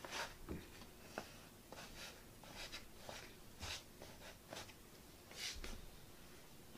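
Faint, irregular handling noises: about a dozen short scrapes and rustles with a few light taps.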